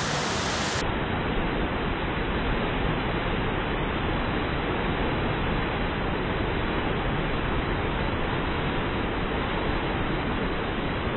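Steady rushing noise of river whitewater pouring over a drop into a standing wave.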